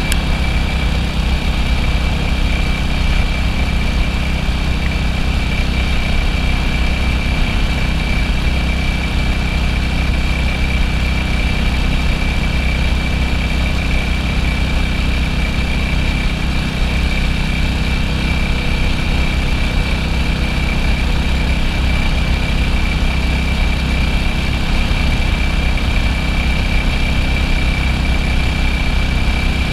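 1967 BSA B40 WD's single-cylinder four-stroke engine running steadily, with no marked revving, and a thin steady high whine alongside.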